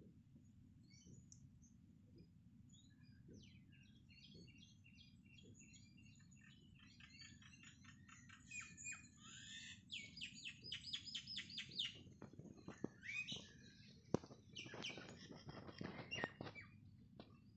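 Small birds chirping and twittering, a few scattered calls at first and then busier runs of rapid notes from about halfway, faint over a low steady background rumble.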